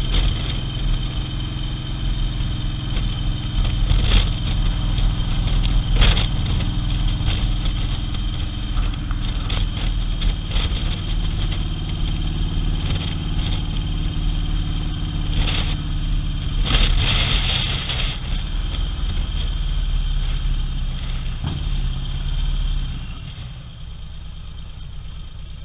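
Harley-Davidson touring motorcycle's V-twin engine running under way, with wind noise at the handlebar camera and a few short sharp noises. Near the end the sound drops noticeably quieter as the bike slows.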